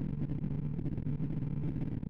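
Computer-generated sorting sonification from Slow Sort working on a 64-number array: a rapid, choppy stream of short low beeps, one per comparison or swap, their pitch following the values being touched.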